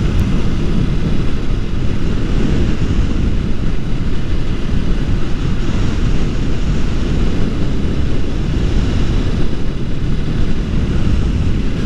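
Wind rushing over the microphone of a motorcycle riding at road speed, with the engine and tyre noise beneath it: a steady, deep rushing noise.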